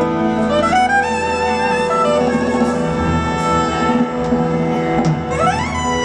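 Live band playing an instrumental passage on piano, drums and horns, with held notes under a melody line that slides upward twice: about half a second in and again near the end.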